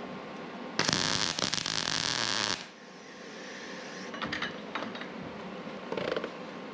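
Welder arcing for about two seconds, a loud crackling hiss that stops abruptly, followed by a few light knocks.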